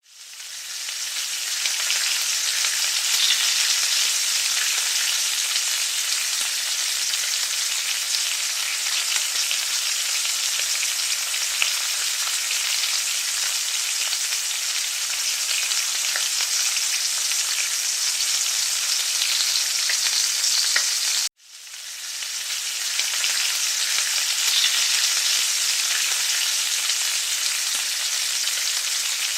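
Eggplant and ground pork patties sizzling steadily in hot frying oil. The sizzle cuts off abruptly about twenty-one seconds in, then fades back up.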